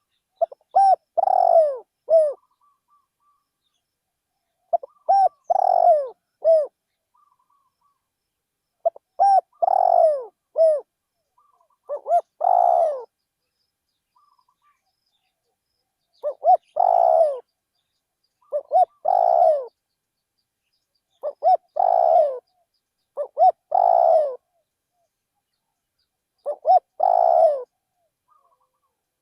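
Spotted dove cooing: about nine short phrases of two to four low, downward-sliding coos, one phrase every two to four seconds with silence between.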